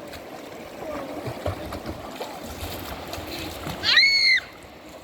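Chattooga River water rushing and splashing steadily, with faint voices. About four seconds in, a child gives one loud, high-pitched shout lasting about half a second.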